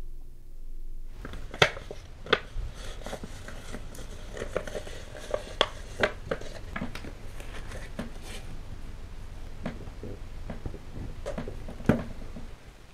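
Paper rustling and crinkling as a parcel's paper wrapping is handled, with several sharp taps and clicks; the loudest come about a second and a half in and near the end.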